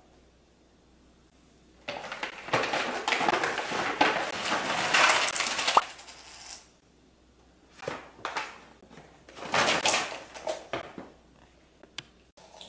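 Halloween sweets and a plastic pumpkin bucket poured out of a paper bag onto a wooden floor, clattering and rattling for about four seconds. Later come a few shorter bursts of clatter as a cat knocks into the plastic pumpkin and the scattered sweets.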